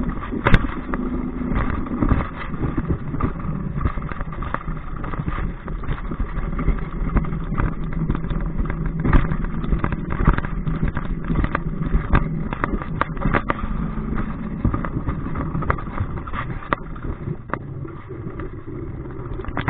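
Hasenhorn alpine coaster sled running along its steel rail track: a steady rumble with frequent irregular rattles and clicks, and a faint low hum.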